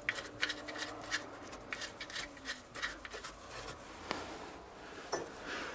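Small metal clicks and scraping as an oil drain plug with a new copper washer is threaded into the sump by gloved hands, the cotton gloves rubbing on the metal. A few sharper ticks come later on.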